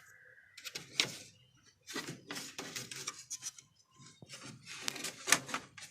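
Hard parts being handled: short clatters, knocks and rubbing scrapes as the opened touch-control panel of a Candy washing machine is moved about, at an uneven pace.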